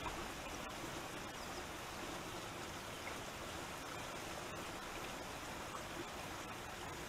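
Wind rushing steadily across the wetland, an even hiss with a few faint ticks.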